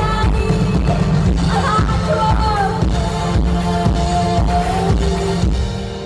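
Live pop band playing a steady drum beat with bass and synth keyboards, and a woman singing long held and gliding notes over it. About five seconds in, the drums and bass drop away and the keyboards carry on.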